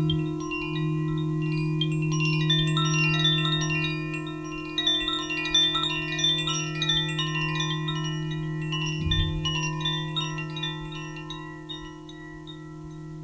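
Quartz crystal singing bowls humming in a steady, pure drone, with high chimes tinkling over them. The tinkling thins out and fades near the end, and there is a soft low thump about nine seconds in.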